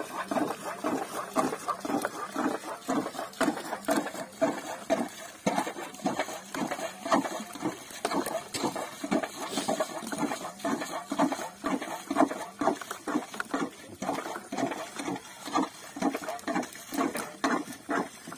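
Wet, rapid irregular patter and slapping of small live fish flapping in a mesh net and against a plastic drum as they are emptied into it.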